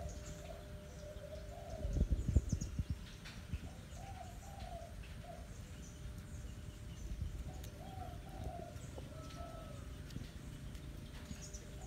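A dove cooing in short phrases of two or three notes, repeated several times. A burst of low thumps and rumble about two seconds in.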